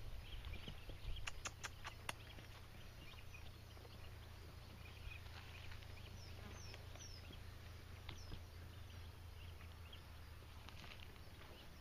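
Quiet outdoor ambience with a steady low hum. A few sharp clicks come about a second or two in, and small birds give faint short high chirps near the middle.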